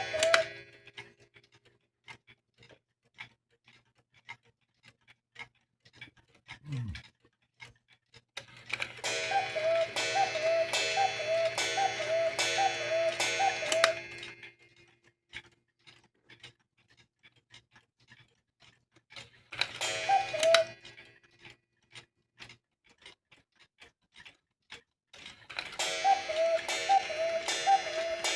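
Vintage German cuckoo clock running, with steady ticking. Twice it breaks into a long run of repeated pitched calls, about two a second, and once into a single short call.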